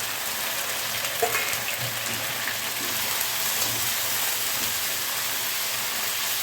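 Onions and potatoes frying in hot oil in a pan with freshly added ground spice paste, giving a steady sizzle.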